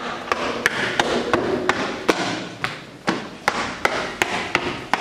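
A steady run of sharp knocks, about three a second, over a noisy background haze.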